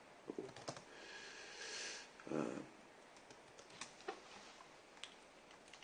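Faint, scattered computer keyboard clicks, with a soft breath and a short murmur of voice between them.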